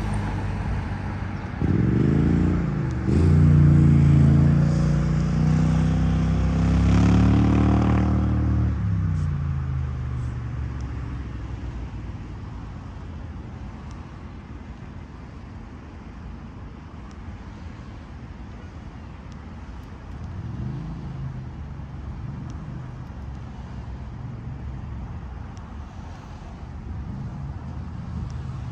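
A motor vehicle's engine accelerating past close by, its pitch climbing and dropping for several seconds before fading away about eight to ten seconds in. After that, a steady hum of road traffic, with another vehicle passing faintly about twenty seconds in.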